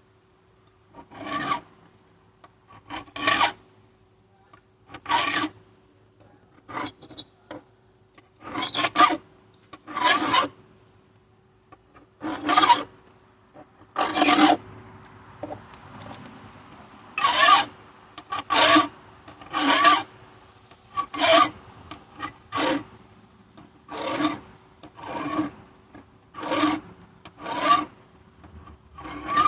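A hand file sharpening a chainsaw chain: one rasping stroke every second or so, with a short pause partway through.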